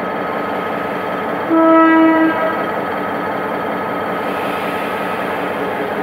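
Diesel-electric passenger train, hauled by a General Motors G-22W locomotive, idling steadily while it stands after an Automatic Train Stop brake application. About a second and a half in, its horn gives one short blast of under a second.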